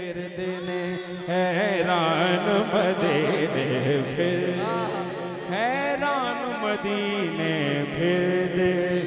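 A naat sung in long wordless melismas by a man's voice, wavering and gliding in pitch, over steady held backing tones that shift pitch now and then.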